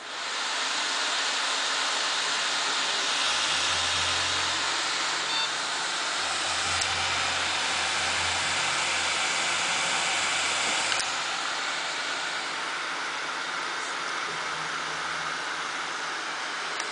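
Newly built desktop PC switched on for the first time: its cooling fans spin up at once and run as a loud, steady rush of air, with a low hum in parts. About eleven seconds in there is a click and the noise eases slightly.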